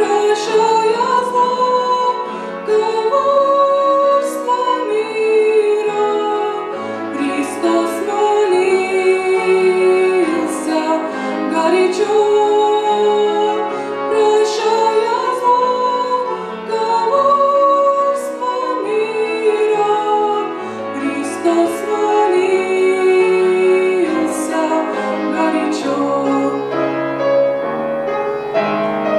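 A woman singing a slow song with piano accompaniment.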